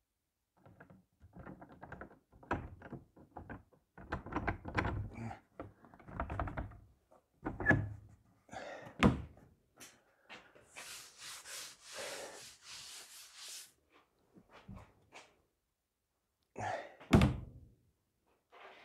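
Wooden kitchen cabinet door being handled and swung shut: a run of irregular knocks and clatter, a sharp knock about nine seconds in, then a few seconds of hissing rustle and one loud thunk near the end.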